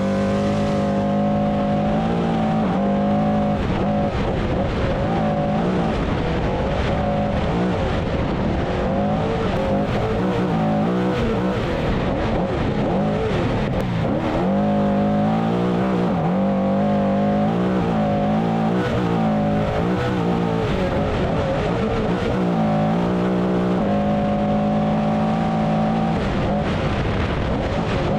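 Trophy Truck's V8 engine running hard at race speed, its revs rising and falling again and again, over steady tyre and wind noise.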